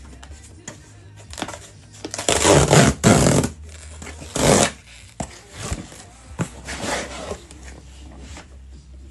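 Cardboard shipping box being opened by hand: packing tape tearing off the cardboard in loud ripping strokes, the longest about two to three and a half seconds in and a shorter one near the middle, then lighter scraping and rustling of the cardboard flaps.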